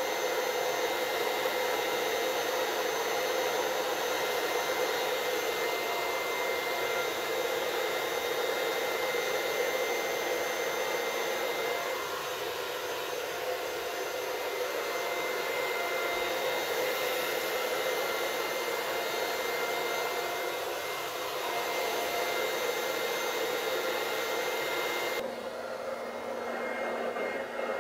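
Handheld hair dryer with a diffuser attachment running steadily on the cold setting: an even rush of air with a steady whine. Near the end the sound abruptly thins out.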